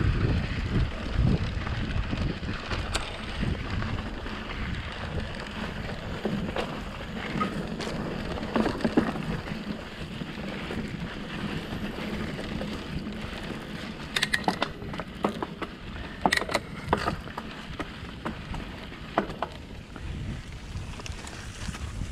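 Mountain bike riding fast down a dirt forest trail: wind buffeting the microphone and tyre noise on the dirt, heaviest in the first few seconds and easing after. The bike rattles and clicks over rough ground, with a run of sharp clicks and knocks about two-thirds of the way through.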